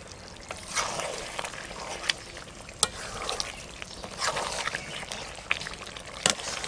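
A metal spatula stirring thick chicken curry in a metal kadai, mixing in meat masala at the end of cooking: wet squelching and scraping, with a few sharp clicks of the spatula against the pan.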